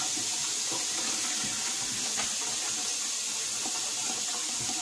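Kitchen tap running steadily into the sink while dishes are washed.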